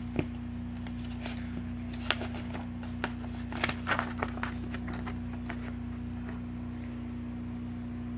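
Glossy paper fold-out insert being handled and unfolded, giving scattered crinkles and clicks that thin out after about five seconds, over a steady low hum.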